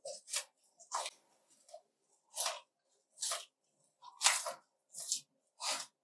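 Chewing a big mouthful of French fries: a series of short, wet crunching mouth sounds, about one a second, the loudest a little past the middle.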